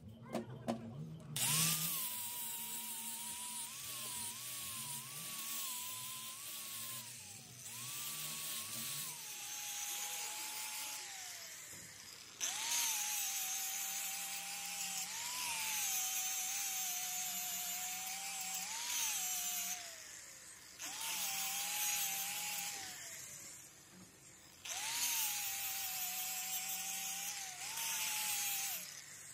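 Handheld angle grinder with an abrasive disc grinding the steel teeth of a crane's swing pinion gear. A harsh grinding hiss runs over the motor's whine, which sags each time the disc bites and recovers, in several passes with short let-ups. A few light knocks come before the grinder starts.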